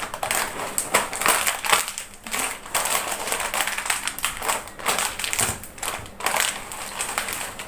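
Foil potato-chip packet crinkling and crackling irregularly as it is squeezed and pulled in an attempt to tear it open with one hand.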